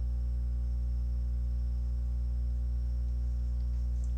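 Steady low electrical hum with a stack of higher overtones, unchanging throughout.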